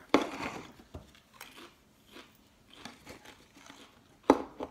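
A person biting into a Pringles crisp with a loud crunch just after the start, then chewing with several softer crunches. A sharp knock about four seconds in.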